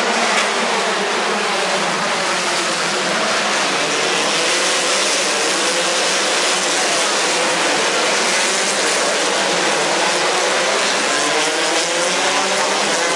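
A pack of Formula 3 race cars' engines revving hard as they pass, several overlapping engine notes rising and falling without a break through a tight corner.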